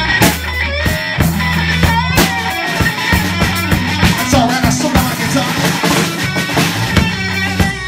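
Live rock band playing: electric guitar over bass notes and drums.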